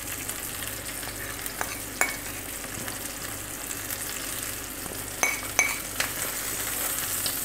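Marinated chicken breasts sizzling steadily in a grill pan over low heat, with a few light clinks of a metal spoon as marinade is spooned over them.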